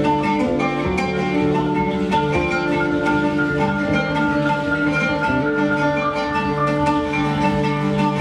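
Live band music: guitar, electric bass, piano and percussion playing together, with held, ringing notes over a steady pulse.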